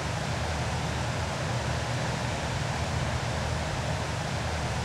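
Steady rush of turbulent white water: the outflow from a hydroelectric powerhouse churning into the river.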